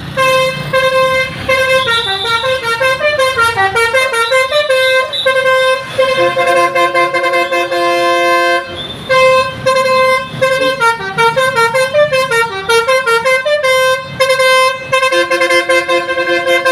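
Basuri telolet multi-tone bus horn playing a melody: quick runs of stepping notes alternate with long held two-note chords, breaking off briefly twice.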